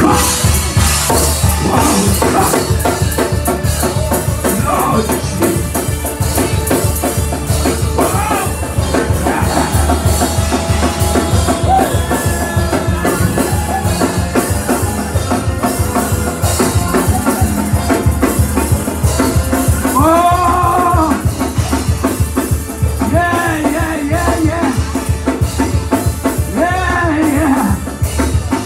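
Loud, fast praise music driven by a drum kit's steady beat. From about twenty seconds in, voices shout and sing over it, sliding up and down in pitch.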